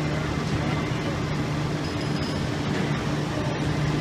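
A heavy engine idling with a steady, unchanging low hum, over a constant background of street noise.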